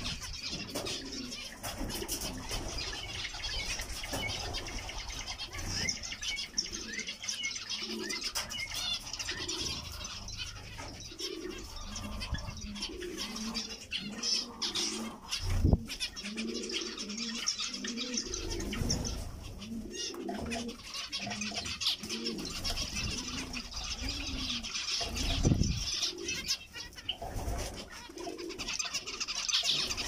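A flock of zebra finches calling continuously with short, high chirps while feeding, over a low cooing call repeated again and again in the background. A few low thumps, the loudest about halfway through.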